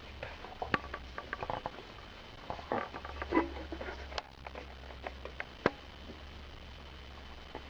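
Small pets moving about, making light pattering and scrabbling with scattered sharp clicks and taps, over a faint steady low hum.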